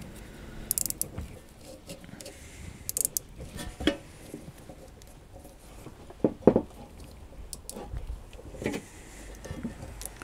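Nylon cable tie being zipped through its ratchet head in a few short bursts of clicks, with handling knocks; the loudest knock comes a little past the middle.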